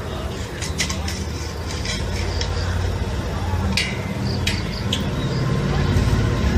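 Heavy engine running with a rough low rumble that grows slightly louder, and a few sharp metallic clanks around the middle.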